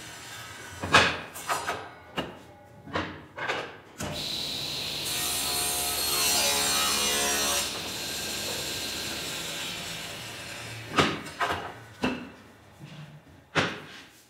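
Table saw blade ripping a board lengthwise for about three seconds near the middle, then running free and fading away. Sharp knocks of wooden boards being handled and set down come before and after the cut.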